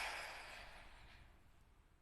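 The echoing tail of a loud, noisy burst, dying away over about a second and a half into near silence.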